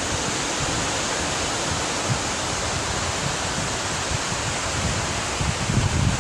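Ocean surf washing onto a sand-and-pebble beach, a steady hiss, with a low wind rumble on the microphone that grows near the end.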